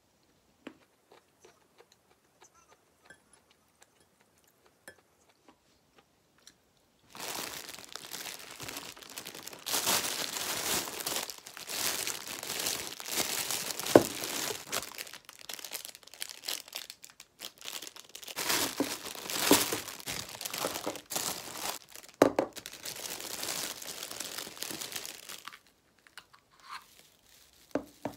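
Clear plastic wrapping crinkling and rustling as it is handled and pulled off a small artificial Christmas tree, full of sharp crackles. It starts after several quiet seconds and stops a few seconds before the end.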